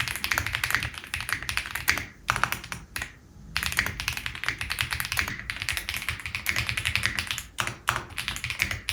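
Fast typing on a Meletrix Zoom TKL mechanical keyboard with an aluminium case and pre-lubed linear switches: a dense stream of keystrokes, broken by short pauses about two seconds and three seconds in.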